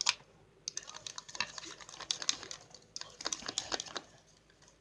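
Rapid clicking and tapping in a small container as hand soap and salt are worked into slime, in two bursts that stop about four seconds in.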